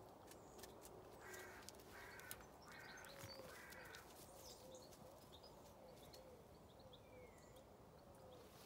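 A crow cawing four times in quick succession, harsh calls spaced about half a second apart, with faint small-bird chirps behind.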